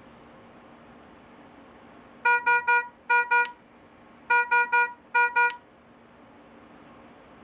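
Philips IntelliVue MP70 patient monitor sounding its alarm: two bursts of pitched beeps, each three beeps then two, in the standard pattern of a high-priority (red) alarm.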